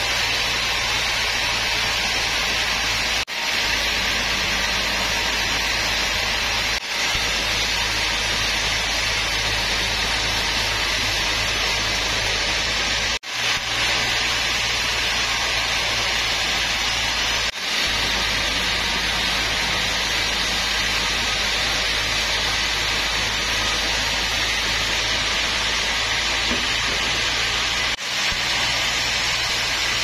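Sawmill band saw running steadily as it cuts lengthwise through a mahogany log: a continuous hiss of blade through wood over a steady motor hum. The sound drops out briefly about five times.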